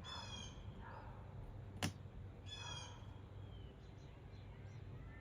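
A bird gives two short, harsh calls about two and a half seconds apart. A single sharp click sounds between them and is the loudest moment.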